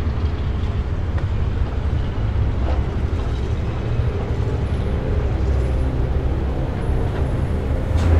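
A steady deep rumble with faint held tones above it, a low drone with no distinct strokes or events.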